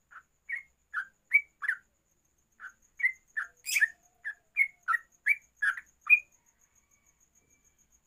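Yellow-vented bulbul (trucuk) singing a quick run of short chirped notes, about two or three a second, with a brief pause about two seconds in and one harsher note about four seconds in. The song stops about six seconds in.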